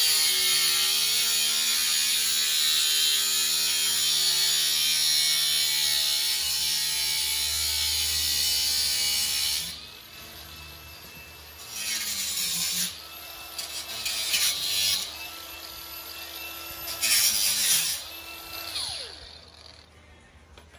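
Angle grinder with a cutoff disc cutting galvanized sheet metal, a loud steady grinding with a motor whine for about ten seconds. The grinder then runs in a few short bursts, and its whine falls away as the disc spins down near the end.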